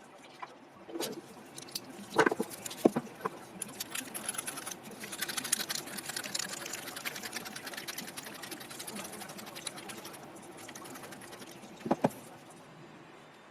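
Hand drill being cranked, its gears turning with a fast run of fine mechanical ticking, with a few sharp knocks as the tool is handled.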